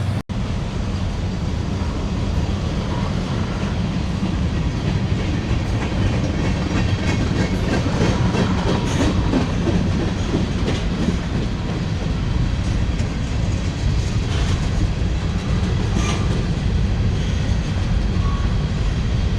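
Freight train cars rolling steadily past, with a continuous rumble of steel wheels on rail and a clickety-clack of wheels over rail joints. The sound cuts out for an instant just after the start.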